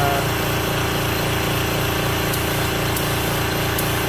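Air compressor running steadily with an even, rapid low pulse, supplying air to a small gravity-feed HVLP spray gun.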